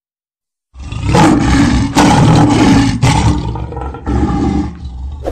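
Logo-intro sound effect: a loud roaring rush that starts about a second in, broken by sharp hits about two and three seconds in, then a shorter surge near the end.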